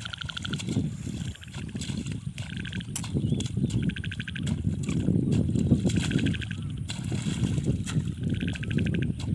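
Hoe working wet mud and water in a flooded rice paddy, with uneven splashing and squelching and scattered sharp knocks. Short pulsed trills from animals in the field repeat every second or two in the background.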